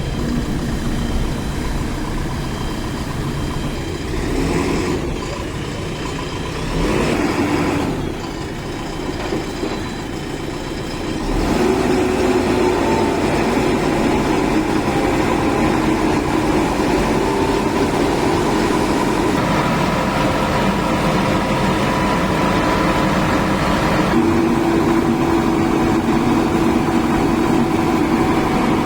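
JCB 3DX backhoe loader's diesel engine running steadily, with two brief swells early on; about a third of the way through it picks up and stays louder to the end.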